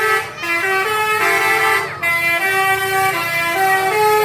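Tour bus's 'telolet basuri' multi-note musical horn playing a tune: a run of held notes stepping up and down in pitch, with short breaks between phrases.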